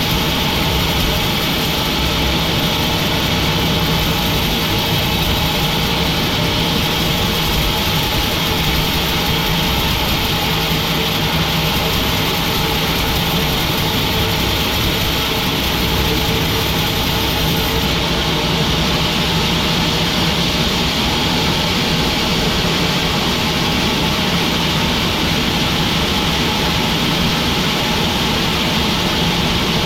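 Sawmill machinery running steadily: a constant mechanical drone with a steady hum, unbroken throughout.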